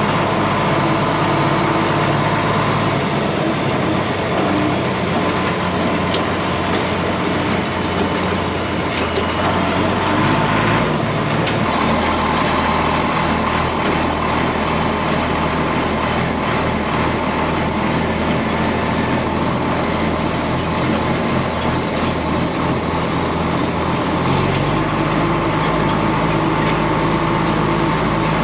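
A John Deere farm tractor's engine running steadily, heard close from the operator's seat, its note shifting a few times.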